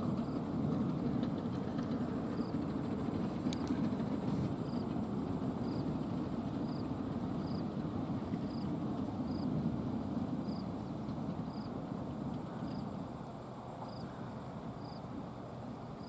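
Komatsu crawler bulldozer's diesel engine working under load as the blade pushes soil, a steady low rumble that eases slightly near the end. A faint high blip repeats about every half second over it.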